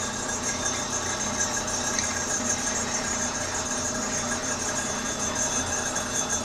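Metal lathe running while a 23/32-inch Morse taper 2 twist drill, fed from the tailstock, drills through the hub of a turning hand wheel: a steady machine hum with cutting noise.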